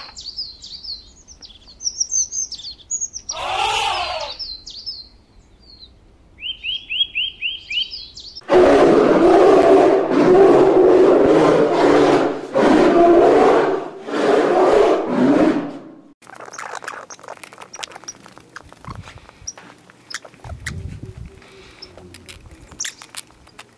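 Birds chirping, with one short falling elephant trumpet about three and a half seconds in. From about eight seconds, a polar bear growls loudly in several long, rough bursts for some eight seconds. Faint scattered clicks follow.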